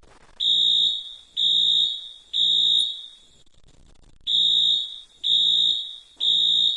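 Fire alarm sounding in groups of three: three long, high-pitched beeps, a pause of about a second, then three more. This is the temporal-three pattern of an evacuation signal.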